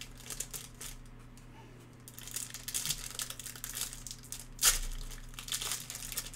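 Foil wrapper of a Panini Limited football card pack crinkling and tearing as it is ripped open by hand, starting about two seconds in, with one sharp, loud crackle about two-thirds of the way through.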